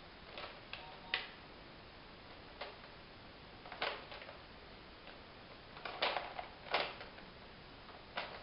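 Toys being played with, clicking and knocking together: about ten sharp, irregular clicks, the loudest about a second in and again a little past the middle.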